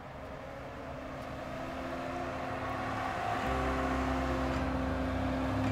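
1979 Toyota FJ45's 2F 4.2-litre inline-six engine running as the truck drives toward the listener, growing steadily louder as it approaches, with a step up in engine sound about three and a half seconds in.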